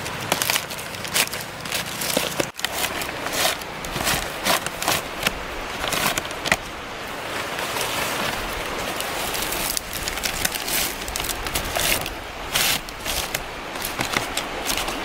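Stiff green leaves rustling and crackling as they are handled and tucked into a bamboo frame as thatch. Quick crisp rustles come one after another, with a longer, steadier rustle in the middle.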